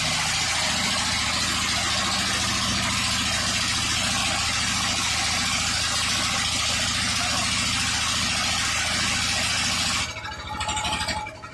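Motor of a wooden river boat running steadily under way, with a loud, even low pulsing and hiss. About ten seconds in the engine slows and its noise drops away sharply, as it is throttled back or cut.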